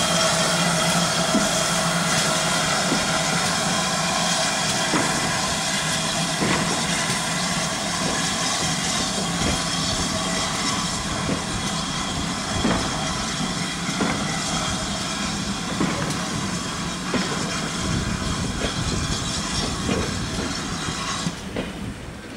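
GWR 4200-class 2-8-0 tank locomotive No 4247 moving slowly away with its train of coaches, a steady loud hiss of escaping steam over faint knocks about every second and a half, slowly fading. Near the end the steam hiss cuts off abruptly.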